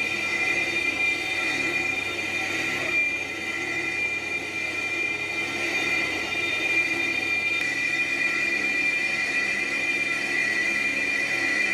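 Cast-iron truck brake drum being turned on a lathe: the cutting tool squeals against the spinning drum as it resurfaces the braking face, a steady high-pitched ringing screech over the running lathe.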